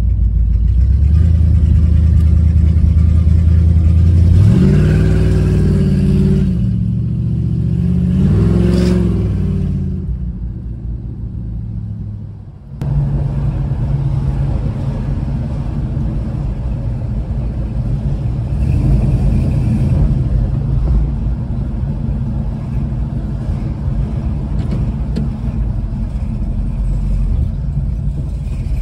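1970 Dodge Charger R/T's V8 heard from inside the cabin: running steady and low, then rising in pitch as it accelerates about four seconds in and again near nine seconds, before dropping away. After an abrupt change about thirteen seconds in it runs steadily at low revs.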